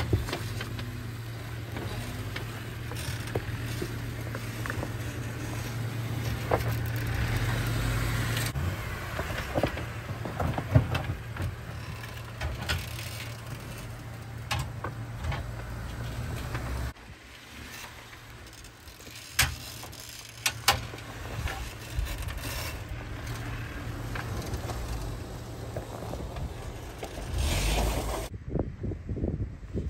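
Jeep Wrangler Rubicon's engine running at low revs as it crawls in four-wheel low, with the tyres crunching over rock and dirt and stones clicking and knocking under them. The sound changes abruptly twice.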